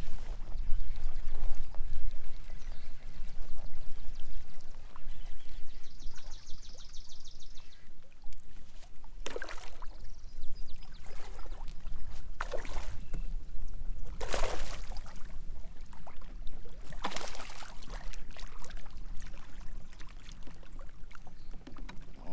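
A hooked bass splashing at the water's surface several times as it is fought to the kayak, with water sloshing and a steady low rumble of wind on the microphone. About six seconds in there is a short burst of fast clicking.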